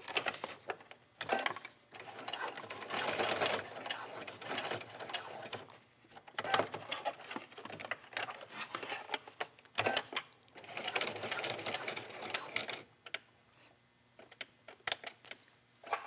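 Electric domestic sewing machine with a walking foot stitching through a folded fabric leash strap. It runs in several stretches with short stops between them, the stops where it pivots while sewing a small square of stitching, and is mostly quiet in the last few seconds.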